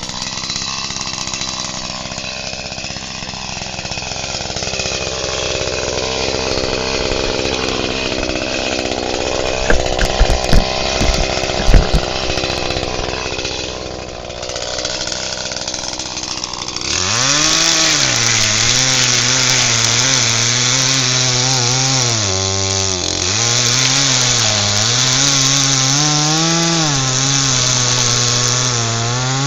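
Echo CS-310 two-stroke chainsaw running steadily at low speed, with a few heavy knocks about halfway. Then, about two-thirds in, it is throttled up and cuts into a log, its pitch sagging and recovering as the chain bites.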